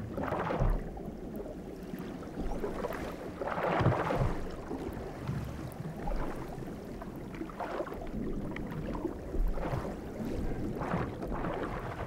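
Muffled underwater water ambience, with several soft swishing surges as water is stirred by darting fish.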